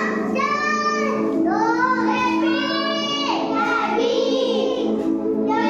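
A children's song: a child's singing voice holding long, sliding notes over steady music accompaniment.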